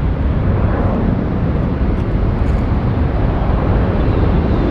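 Steady low jet-engine rumble of a UPS Airbus A300 freighter climbing out after takeoff.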